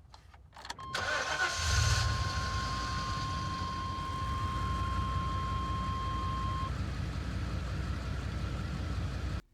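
A van's engine starts after its wiring was redone: a few clicks, a brief crank, then the engine catches at about two seconds in and settles into a steady idle. A steady high beep, a dashboard warning tone, sounds from about one second in until about seven seconds in.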